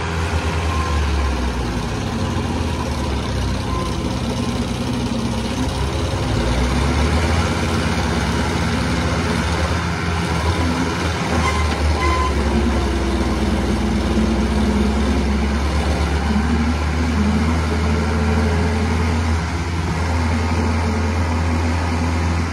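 Tractor diesel engines running hard under heavy load, a steady low drone with slight wavering, as an HMT 5911 and a Sonalika 60 pull against each other.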